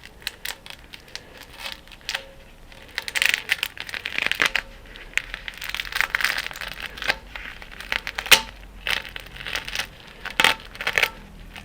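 Covering being peeled and torn off a JB Weld alloy wheel repair, crinkling and crumpling in irregular bursts with scattered sharp clicks, one louder snap a little after the middle.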